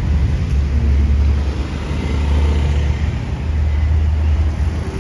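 Steady low rumble of road traffic and motor scooter engines.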